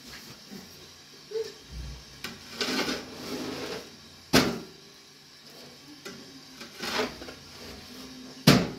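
Thin flatbread being worked on a domed metal griddle: soft rustling of the dough sheets with two sharp knocks, about four and eight and a half seconds in, as the bread is lifted on the stick.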